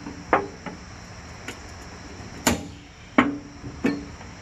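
A hand tool striking and prying at scrap stainless steel, giving a series of about six sharp metallic clanks at uneven intervals. Some ring briefly, and the loudest comes about halfway through.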